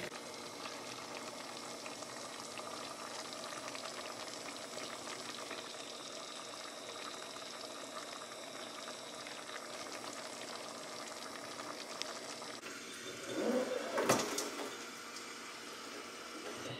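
Beef and broccoli in stir-fry sauce simmering in a frying pan on a gas stove, a steady low bubbling and sizzling as it cooks down. About three-quarters of the way through comes a brief louder sound ending in a knock.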